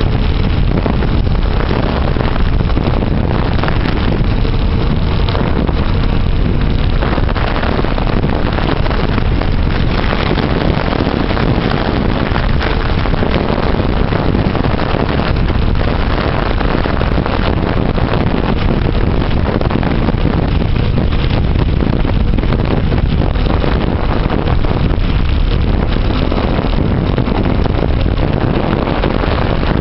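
Steady, loud wind rumble buffeting the microphone of a camera riding along on a moving mountain bike.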